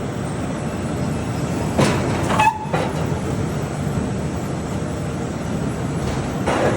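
Heavy farm machinery running steadily, a dense rumbling clatter with a few louder knocks about two seconds in and again near the end.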